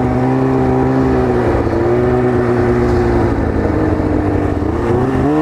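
Arctic Cat ZR 800 snowmobile's two-stroke twin engine running at low speed under way, its pitch steady and then rising briefly near the end as the throttle opens. The engine is running rough, which the rider calls fluttering and popping.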